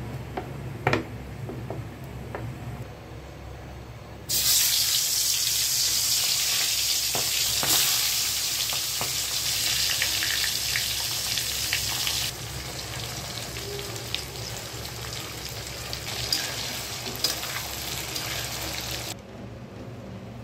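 Turmeric-coated pangas fish heads sizzling in hot oil in a karai (wok). The frying hiss starts suddenly about four seconds in after a low hum and a single click. It is loudest for the next eight seconds, then continues more softly and falls away about a second before the end.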